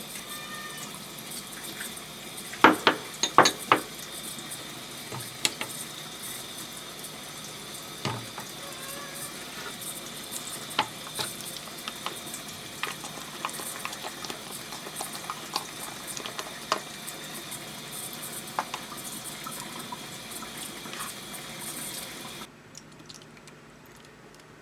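Food frying in a pan, a steady sizzling hiss, with scattered clinks and taps of utensils against cookware. There is a loud cluster of clinks about three seconds in, and the sizzle cuts off suddenly near the end.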